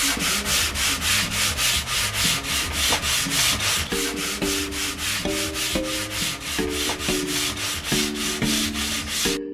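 Sandpaper on a hand block rubbed back and forth over painted tongue-and-groove cedar lining boards, in fast, even strokes of about four or five a second: a quick sand of the painted boards to take off dribbles.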